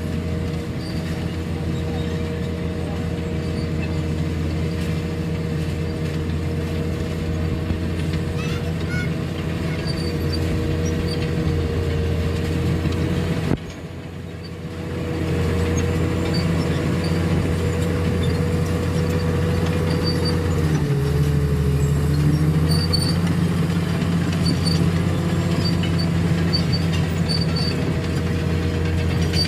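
Caterpillar bulldozer's diesel engine running steadily, with a brief drop in loudness a little under halfway through and a short dip in pitch about two-thirds of the way in.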